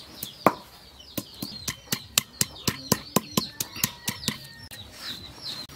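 Cylindrical stone pestle pounding onion on a flat stone grinding slab: a single knock, then a steady run of sharp knocks about four a second that stops a little past four seconds in. Birds chirp faintly behind.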